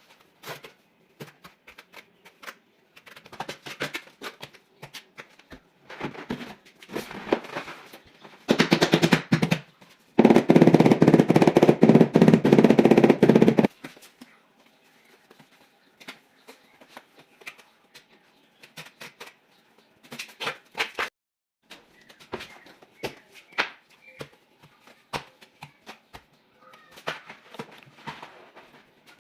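Tile-fixing work: scattered knocks and clicks, broken by a loud, rapid rattling burst about nine seconds in and a longer one running from about ten to fourteen seconds.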